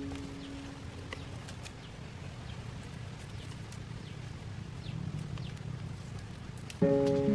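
Faint rustling and light clicks of split bamboo strips and dry bamboo sheath being handled and tied into a lashing, over quiet outdoor ambience. A plucked ukulele note dies away in the first second, and ukulele music comes back in near the end.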